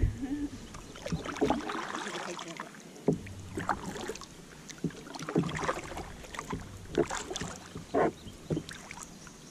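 Kayak paddle strokes dipping and splashing in the water, a stroke every second or so, with dripping between them.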